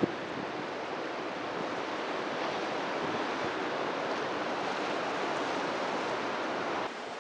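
Steady rushing of moving water, an even wash of noise with no pitch. There is a short knock right at the start, and the level drops suddenly about seven seconds in.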